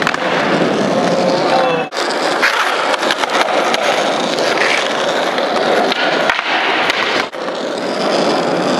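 Skateboard wheels rolling steadily over smooth concrete, with a few sharp clacks of the board hitting the ground during flatground tricks.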